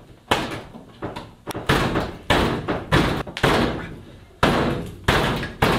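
The rusted-shut driver's door of a 1976 Chevy K10 pickup being shoved and banged from inside: about nine heavy metal thuds, each with a short rattle, spaced roughly half a second apart. The door will not open because its latch is frozen with rust.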